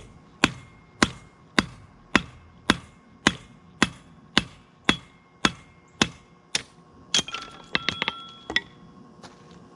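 Hammer striking steel on an anvil in an even rhythm of about two blows a second, cutting off a section of 5160 coil spring. Near the end come a quicker run of lighter, ringing clinks, and then the hammering stops.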